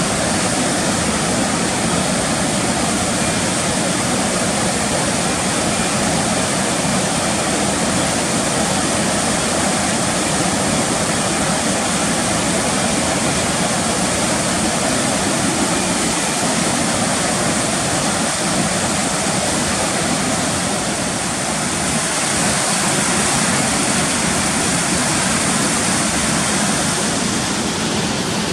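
Water rushing into a lock chamber as the lock fills, pouring through and over the gate and churning in the pool below. The rushing is loud and steady, with a slight dip about three quarters of the way through.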